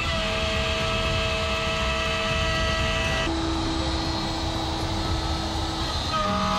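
Shapeoko CNC router's spindle running as its bit cuts through MDF: a steady whine over a noisy hiss, the pitch of the whine jumping abruptly twice.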